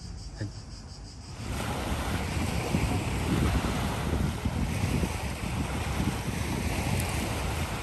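Crickets chirring faintly. About a second and a half in, this is cut off by gusty wind buffeting the microphone, with small waves lapping on a pebble lakeshore.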